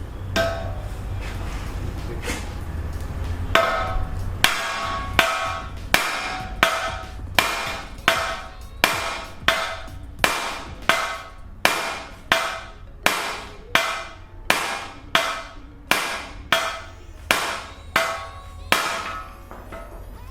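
Hammer blows driving a seized front wheel bearing out of the steering knuckle, about twenty sharp metallic strikes at a steady beat of a little over one a second, each ringing briefly. A few seconds of softer knocking and rumble come before the steady strikes begin.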